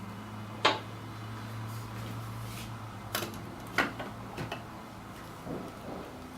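Sharp metal clunks and clicks as the portafilter is handled and locked into the Lelit espresso machine's E61 group head: a loud one about a second in and a few smaller ones later, over a steady low hum.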